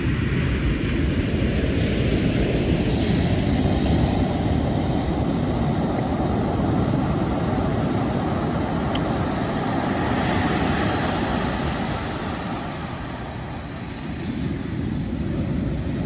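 Ocean surf breaking and washing up a sandy beach: a steady low rumble of waves that eases briefly near the end, then swells again as the next wave washes in.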